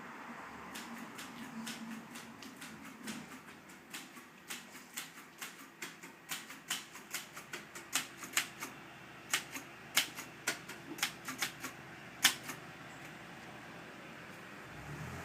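Typewriter keys being struck in an irregular run of sharp clicks, a few a second, building in strength through the middle, with one loud strike near the end before the typing stops.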